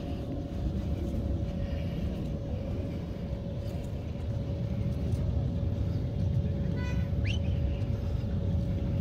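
Steady low outdoor rumble with a faint steady hum through it, and a brief rising squeak about seven seconds in.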